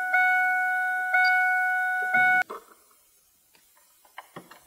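Dashboard warning chime of a 2003 Ford F-150 sounding as the ignition is switched on, a steady electronic ding repeating about once a second and cutting off about halfway through. A few faint taps follow near the end.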